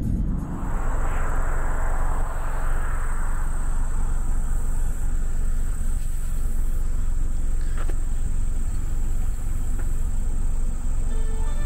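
Car driving on the road, heard from inside the cabin: a steady low road-and-engine rumble with a constant thin high-pitched tone. A broad whoosh swells up and fades away over the first few seconds.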